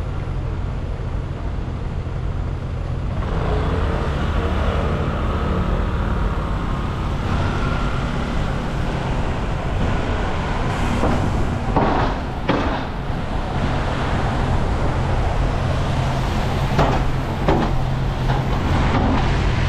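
City road traffic, cars and buses passing close by, heard from a moving bicycle: a steady rumble that grows louder about three seconds in.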